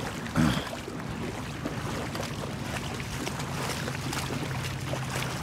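Legs wading through shallow seawater, sloshing and splashing, over a steady low hum of a motorboat engine.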